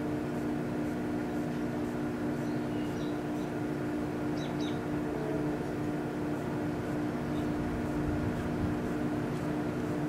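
Danby microwave oven running with a steady hum, an aerosol can of body spray heating inside it without bursting. A few faint high chirps sound over the hum.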